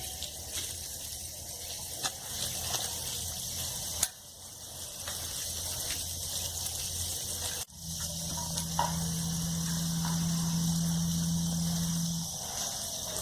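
Steady rain falling, an even hiss with scattered drops ticking close by. A low steady hum runs underneath, joined by a steady low drone for about four seconds in the second half.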